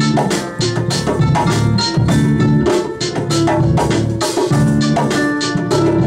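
Live band music: hand drums such as congas and djembe keep a brisk, steady beat under held pitched notes from other instruments.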